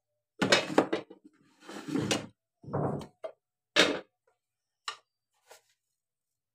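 Knocks and clatter of kitchen utensils and spice containers being handled, about four louder clatters in the first four seconds, then two light taps.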